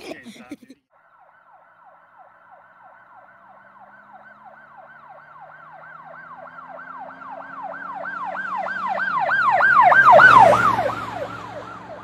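Emergency vehicle siren in a fast yelp, sweeping up and down several times a second, with a low engine hum underneath. It grows steadily louder to a peak about ten seconds in, then fades as the vehicle passes.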